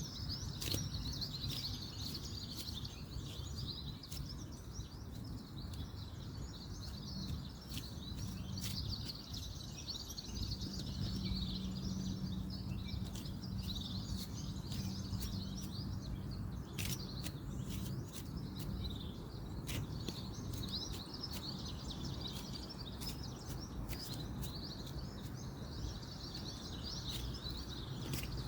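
Many small birds chirping and twittering without pause over a steady low rumble of distant road traffic. A faint low hum rises out of the rumble for a while in the middle, and scattered sharp clicks come every few seconds.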